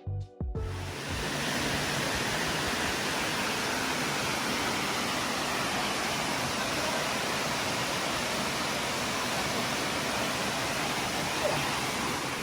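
Waterfall rushing: a steady, even roar of falling water. A music track cuts off about half a second in.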